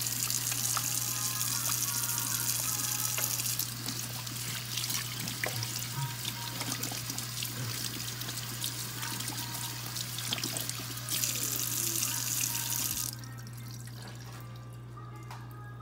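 Kitchen tap running into a sink while hands are washed under the stream, louder at the start and again near the end, then shut off about 13 seconds in.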